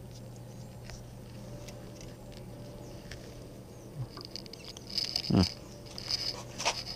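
Hand brace bit being set into a wooden board: a knock about five seconds in, then short bursts of scraping and crunching as the bit starts to bite into the wood.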